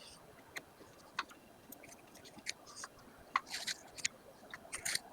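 Scattered faint clicks and short rustles of hands handling electrical wiring and plug connectors.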